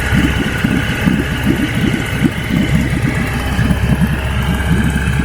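Small petrol boat motor running steadily.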